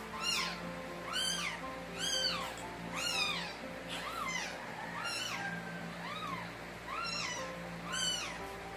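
A newborn Shih Tzu puppy crying hard: a steady run of high, squeaky cries, about one a second, each rising and then falling in pitch.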